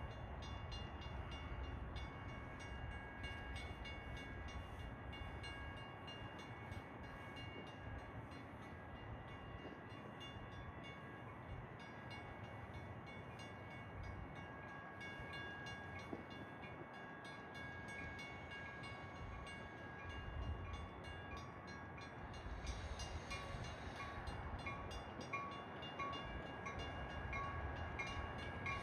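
Metra commuter train arriving: a low steady rumble and hiss with a faint steady whine, growing louder in the last several seconds.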